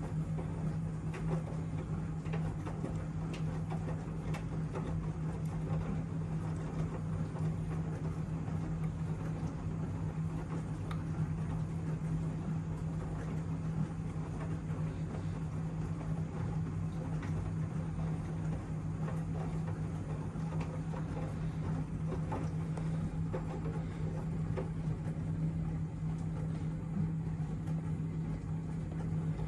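Miele W1 washing machine running, a steady constant hum with faint ticks and no pauses.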